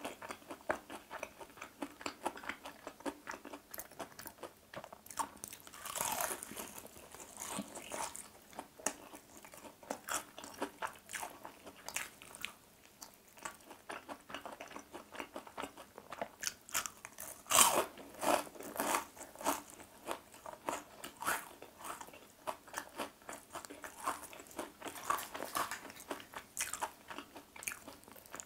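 Crunching bites and chewing of crispy battered fried chicken drumsticks: a steady run of small crackles, with a louder bite a little past halfway.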